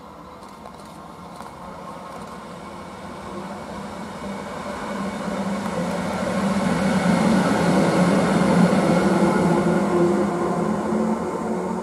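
A Siemens Vectron electric locomotive running light, with no wagons, passes close by. Its wheels rumble on the rails under a steady whine, growing louder to a peak about two thirds through, then easing off as it goes away.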